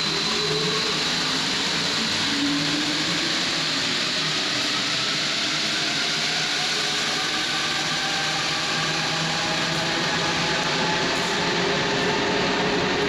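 Santiago Metro Line 2 train running in the station: a steady, loud rumble of wheels and motors, with a faint whine that slowly rises in pitch as the train gathers speed.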